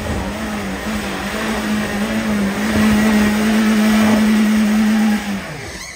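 BMW E30 3 Series car engine held at high, steady revs under load as the car climbs a steep muddy hill, growing louder as it comes closer. A little after five seconds in, the revs drop away with a falling pitch.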